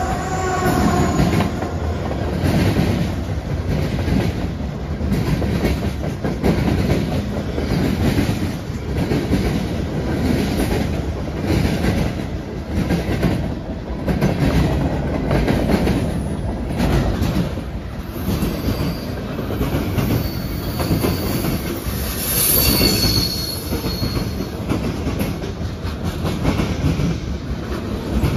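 CSX freight train's cars rolling past close by, their wheels clacking over rail joints in a steady rhythm about once a second. A high, thin wheel squeal comes and goes about two-thirds of the way through. The horn's last note fades out in the first second.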